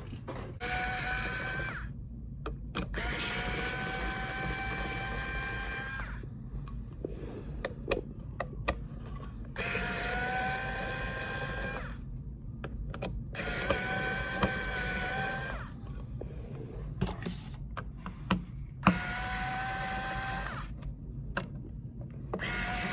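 3.7 V cordless electric screwdriver running in about five separate runs of two to three seconds each, backing screws out. Each run is a steady motor whine that climbs slightly in pitch, with sharp clicks and taps in the pauses between runs.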